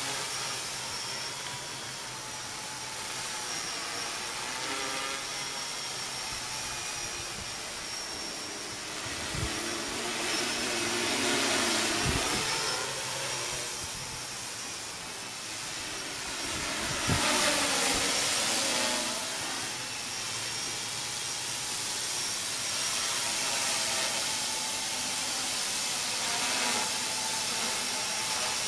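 Conrad 450 quadrocopter's four electric motors and propellers whirring in flight, a hissing buzz whose pitch bends up and down and whose level rises and falls as it manoeuvres. A few low thumps sound over it, the loudest about 17 seconds in.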